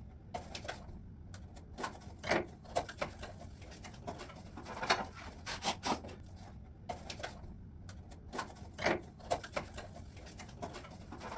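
A cardboard box being opened and unpacked by hand: irregular rustling and scraping of cardboard and packaging, with scattered sharp knocks and clicks as parts are handled and set down.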